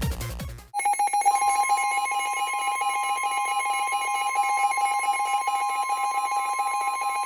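Emergency Alert System attention signal: a steady two-pitch electronic alarm tone that starts about a second in, right after electronic dance music cuts off, with the higher pitch joining a moment later.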